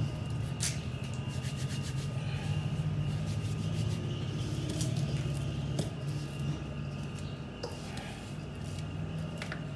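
Hands kneading and rubbing stiff flour dough in a stainless steel mixing bowl, with a few sharp clicks against the bowl. A steady low hum runs underneath.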